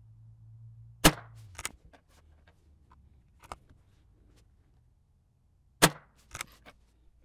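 Two shots from a CZ 457 Varmint MTR bolt-action .22 LR rifle firing CCI Standard Velocity ammunition, about five seconds apart. Each shot is a sharp crack followed by a few quieter clicks.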